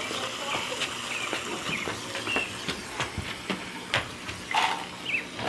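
Water jetting from a PVC return pipe into a round plastic fish tank, a steady splashing hiss with small spatters. It is the filtered water coming back from the tank's filter.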